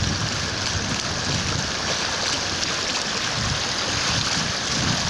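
Floodwater running across a road in a steady rush, with wind rumbling on the microphone.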